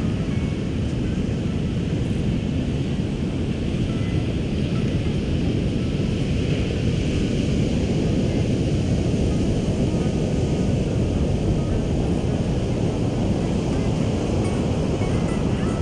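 Steady rush of ocean surf mixed with wind buffeting the microphone, a dense low noise that holds level without breaks.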